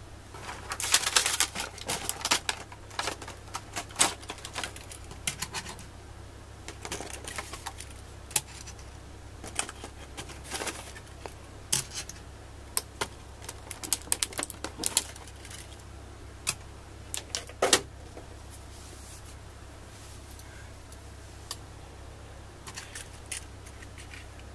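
Irregular plastic clicks and rattles of small N-gauge model train cars being pried out of a clear plastic blister tray and set down on a table. The clicks come in clusters, busiest in the first few seconds.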